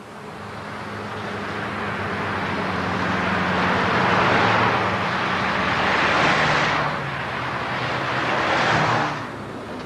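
Motorway traffic going by: a steady low engine hum under a rush of tyre and engine noise that swells as vehicles pass close by, loudest about four and a half, six and nine seconds in.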